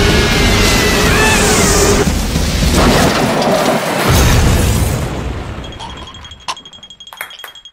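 Cartoon explosion sound effect: a loud rumbling blast with a character's scream over it early on. About five seconds in it dies away into small clinks of settling debris and a thin high ringing tone.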